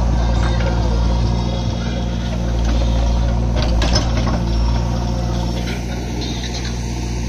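JCB backhoe loader's diesel engine running steadily under digging load, with a few sharp knocks of rock and rubble from the bucket around the middle.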